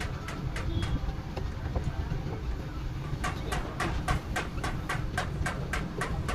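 Rapid, evenly spaced clicking, about four clicks a second, over a steady low rumble; the clicks become stronger about three seconds in.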